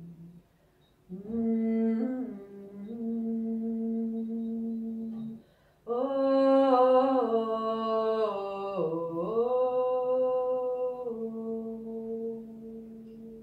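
A woman singing a wordless chant in long held notes: one phrase starting about a second in, then a longer, louder one from about six seconds, each note sustained with small steps and dips in pitch.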